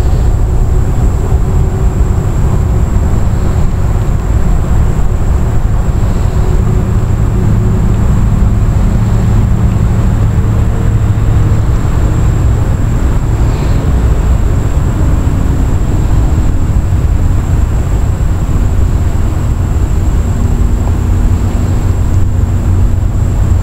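Outboard motor running steadily: a loud, unbroken low drone.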